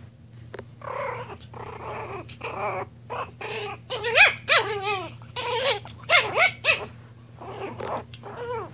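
A puppy growling as it fights, then a run of short, high yelping whines that rise and fall in pitch from about four seconds in.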